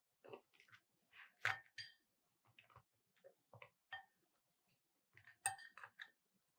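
A metal fork clinking and tapping against a ceramic bowl while it moves bread slices around in egg batter: a string of short, irregular taps, some ringing briefly, with the sharpest clinks about a second and a half in and again about five and a half seconds in.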